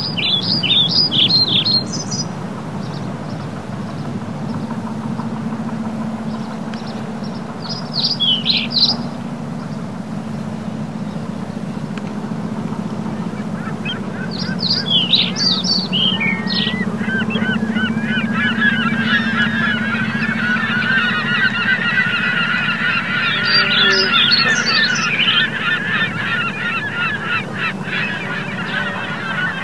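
Waterfowl calling on a lake: short bursts of high honking calls every few seconds, and from about halfway a dense chatter of many birds calling at once, over a steady low hum.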